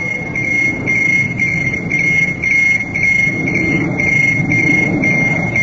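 Electronic warning beeper sounding a high tone about two and a half times a second, over a low steady rumble.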